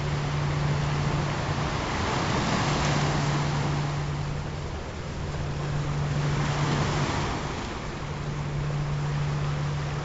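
Recorded ocean surf, a steady wash that swells with incoming waves about every four seconds. Underneath runs a low steady tone, the track's frequency tone, which breaks off briefly three times.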